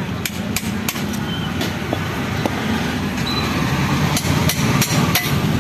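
Sharp metal taps of a hammer on a punch, driving pins out of a cast-aluminium motorbike engine cover: three quick taps in the first second, then four more, about a third of a second apart, near the end. A steady low rumble runs underneath.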